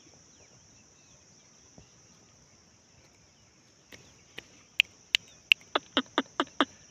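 Steady high-pitched insect drone, like crickets, over the countryside. About four seconds in, a run of about ten loud, sharp clicks starts, coming quicker toward the end.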